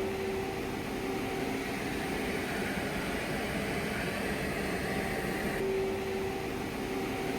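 Steady hum and hiss of machinery running in a machine shop, with a faint steady tone that fades out for a few seconds in the middle and then returns.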